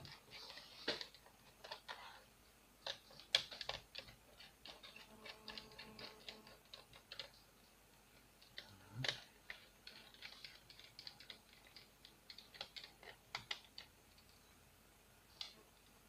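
Faint, scattered clicks and small scrapes of a small screwdriver and fingers on the screws and metal of a laptop's processor heatsink as it is unscrewed.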